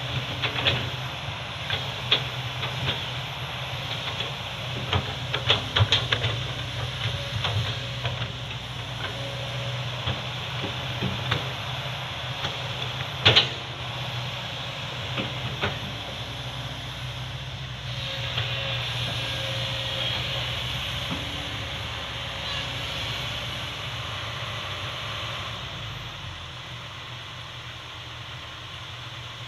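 Heavy excavator's diesel engine running steadily, with scattered knocks and clatter of rock and steel and one sharp, loud knock about 13 seconds in; a hissing rises a little past halfway, and the engine eases off near the end.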